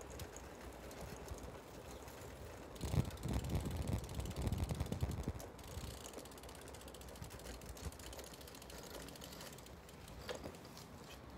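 Bicycle freewheel hub ticking steadily as the rider coasts, with a stretch of wind and road rumble about three to five seconds in.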